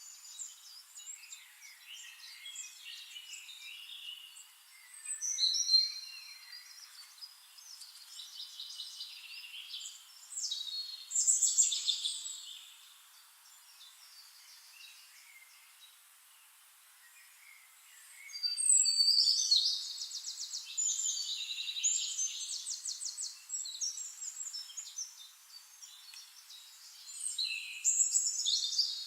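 Songbirds chirping and singing, with several loud bursts of quick, rattling trills between softer twittering.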